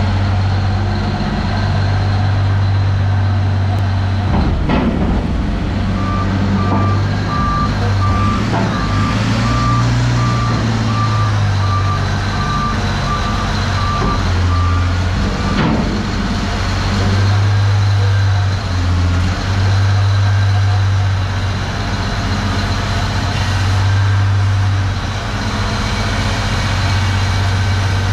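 Komatsu HD785-7 rock truck's big 12-cylinder diesel engine running steadily, its low sound swelling and easing. From about six seconds in, a reversing alarm beeps in an even series for about ten seconds.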